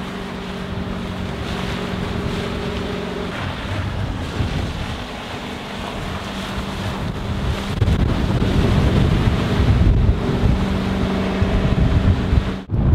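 A Rinker 282 cuddy's Mercruiser 496 Mag V8 stern-drive engine running at speed as the boat passes: a steady engine drone under heavy wind noise on the microphone, growing louder from about eight seconds in.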